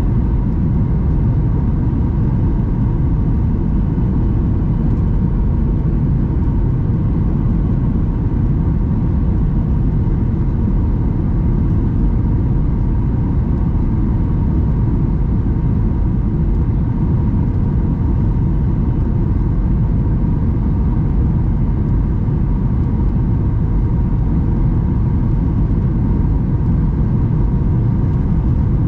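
Steady rumble of a Boeing 737-800's CFM56 turbofan engines and airflow heard inside the passenger cabin, with a faint steady hum riding on it.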